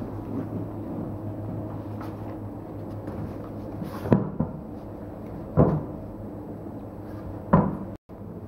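Three dull, heavy thumps, about a second and a half apart, as a tractor tyre on its steel wheel is worked by hand on a rubber mat. A steady low hum runs underneath.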